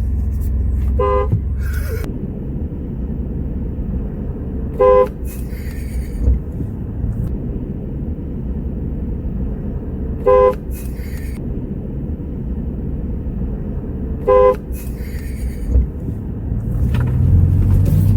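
Car horn giving four short toots several seconds apart, over the steady low rumble of the car driving.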